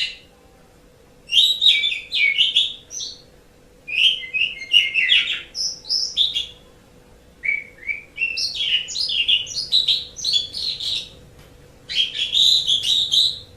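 Asian pied starling (jalak suren) singing in bursts of fast, varied chattering and whistled notes, several phrases of one to four seconds with short pauses between.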